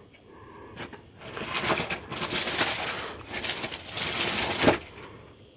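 Plastic bag crinkling and rustling in irregular bursts as it is handled and rummaged through, with a thump near the end.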